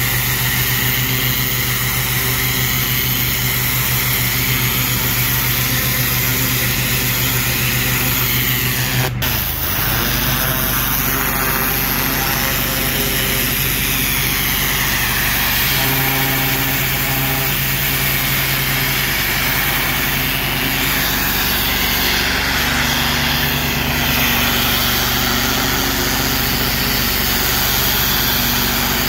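A pressure washer's engine runs steadily under the hiss of the high-pressure water jet hitting a brick wall. About nine seconds in there is a sharp click and the engine note shifts slightly.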